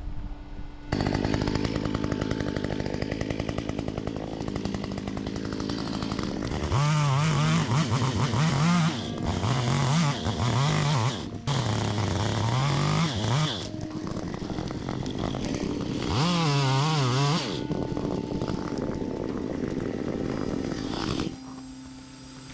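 Gas chainsaw running, starting about a second in: steady at first, then revved up and down in repeated surges, with another surge later on, before the sound drops away near the end.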